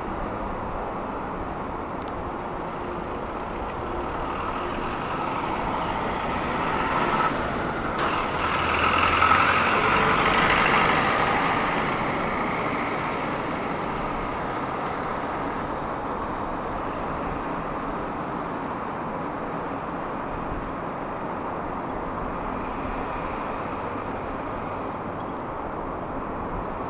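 A vehicle passing by over a steady background rumble: its noise builds, peaks about ten seconds in, then fades away.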